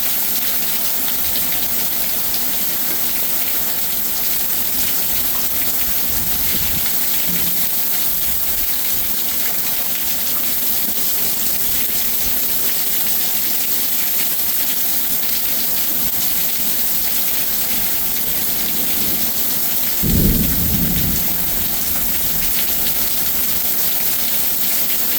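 Heavy rain falling steadily in a thunderstorm, a constant loud hiss. About twenty seconds in, a brief low rumble stands out.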